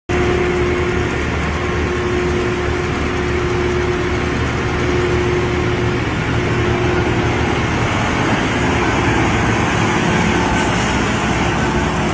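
Heavy earthmoving machine's engine running steadily, with a constant hum.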